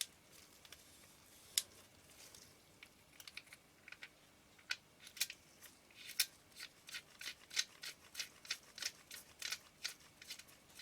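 Faint, sharp little clicks and ticks of metal and glass lens parts being handled. A cleaned lens element is set back into the barrel of a Minolta MD W.Rokkor 28mm lens. The clicks are scattered at first, then come in a quicker run of about three or four a second from about halfway in.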